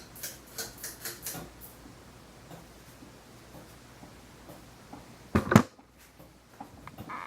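Fasco Charleston ceiling fan running at medium speed with a low hum and a quick run of clicks and rattles in the first second or so: shaking sounds from its slightly warped flywheel, at its worst at medium speed. A loud single knock comes about five seconds in.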